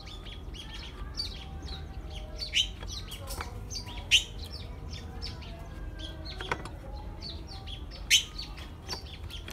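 Small birds chirping: many short, high chirps in quick succession, a few louder ones standing out about two and a half, four and eight seconds in.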